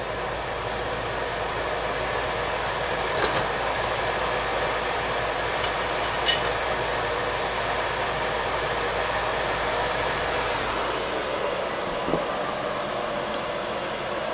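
Steady whirring fan noise, with a few light clinks of kitchenware: a ladle against the pot and bowl, and the pot's glass lid set back on about six seconds in.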